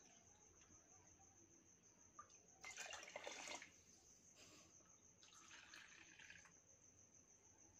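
Faint pouring and splashing of milk from a bowl into a small plastic measuring cup and into a rice cooker's inner pot. The loudest pour comes about three seconds in, followed by two shorter, weaker ones.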